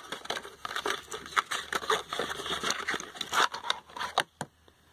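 Product packaging rustling and crackling as a boxed item is turned over in the hands: a run of irregular clicks and crinkles that stops about four and a half seconds in.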